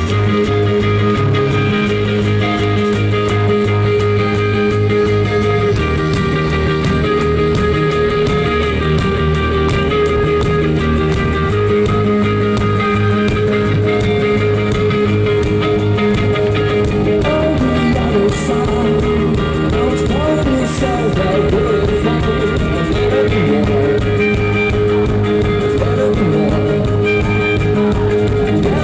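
Live rock band playing, with electric guitars ringing out sustained chords over a steady bass line.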